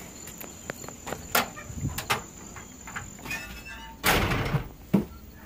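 An insect's steady high trill that stops about three seconds in, with scattered footsteps and knocks; then a loud rushing scrape about four seconds in and a sharp thump, fitting a house door being opened and shut on the way indoors.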